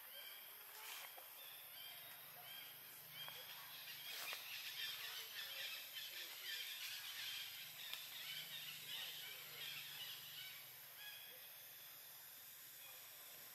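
Faint outdoor ambience of small birds calling: short high chirps repeated about twice a second, with denser twittering in the middle, over a faint low steady hum.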